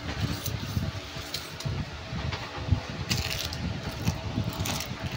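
Irregular soft thumps and light rustling, scratching ticks as kittens scramble and pounce on a plastic floor mat, batting at a dangled toy.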